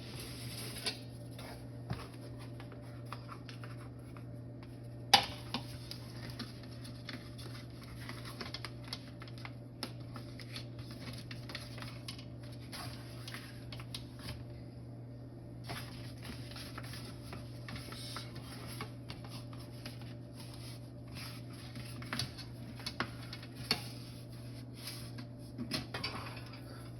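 Kitchen clatter of a metal pan and utensils knocking and scraping against the oven and pizza stone while a pizza is lifted out, with one sharp clank about five seconds in and a cluster of knocks near the end, over a steady low hum.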